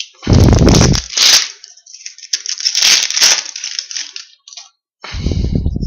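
A foil trading-card pack wrapper being torn open and crinkled, with dull bumps from handling about half a second in and again near the end.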